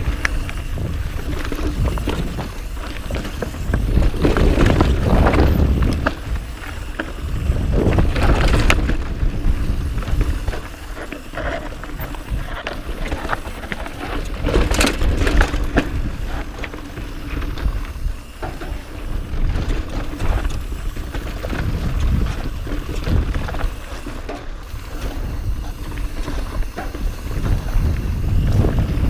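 Mountain bike riding over rocky dirt singletrack, heard from a camera mounted on the rider: tyres rolling over dirt and rock with knocks and rattles from the bike over bumps, and wind rumbling on the microphone, rising and falling in surges.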